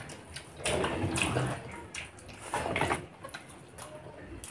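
Eating sounds: chewing and fingers mixing rice with chicken curry on a plate, in irregular short bursts, louder twice in the first three seconds.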